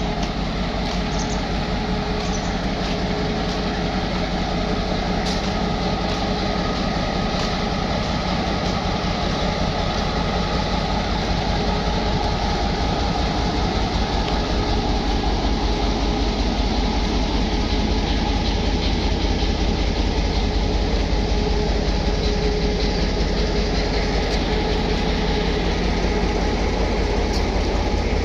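Pakistan Railways diesel-electric locomotive 4901 idling at a standstill, ready to depart: a steady low throb with a faint steady whine over it, growing slightly louder about two-thirds of the way through.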